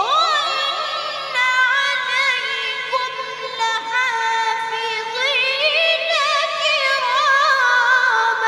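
A boy's high voice chanting melodic Quran recitation into a microphone. It opens with a quick rising glide, then sustains long, ornamented notes that waver up and down.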